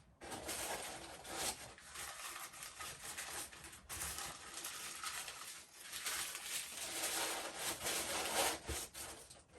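Packaging rustling and crinkling in irregular bursts as a part is unwrapped by hand.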